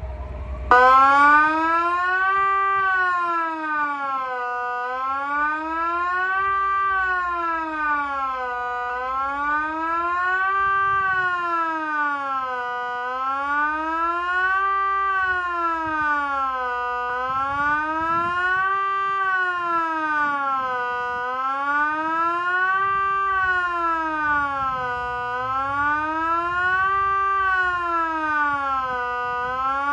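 Kockum Sonics ET 30/3 civil-defence siren sounding the Swiss general alarm signal: a loud wailing tone that rises and falls steadily, about one up-and-down every four seconds. It comes on suddenly under a second in.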